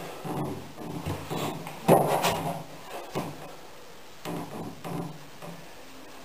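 Shouts and straining voices during a heavy barbell bench press (four-board press), in short bursts, the loudest about two seconds in.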